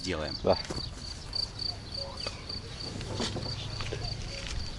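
A cricket chirping steadily, a short high chirp about four times a second, with a couple of soft knocks.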